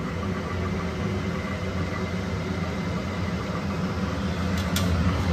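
Steady low rumbling hum of a kitchen background, with a few light metallic clicks near the end, like a spoon touching a steel plate.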